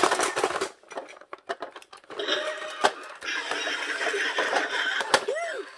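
Electronic sound from a battery-powered Chuck the Dump Truck toy, played from its own small speaker after its cab button is pressed. The sound runs steadily for about three seconds, starting about two seconds in, with a brief voice-like sound at the start and another near the end.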